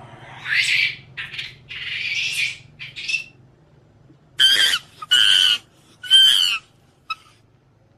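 Macaque monkeys screeching: a few harsh screeches in the first three seconds, then three shrill squeals about a second apart.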